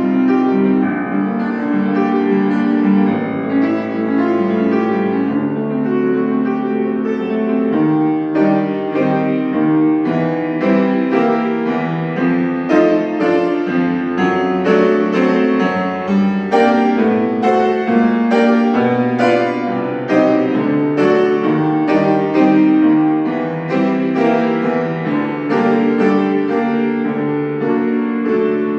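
Solo piano playing a classical piece, with a steady flow of notes and chords.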